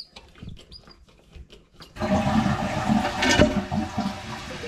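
A few faint clicks and squeaks at the shut-off valve. Then, about two seconds in, water suddenly rushes into the toilet tank through the freshly cleaned fill valve, easing into a steady fill near the end. The valve, cleared of debris, fills the tank quickly with no hissing.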